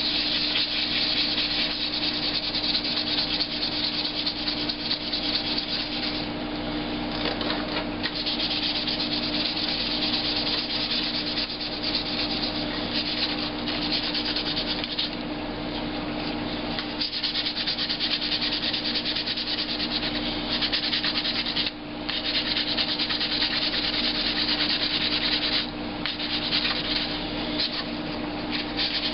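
Sandpaper rubbing back and forth over dried filler on a laptop's plastic case, a continuous scratchy sanding that stops briefly twice, about two-thirds of the way through and again a few seconds later.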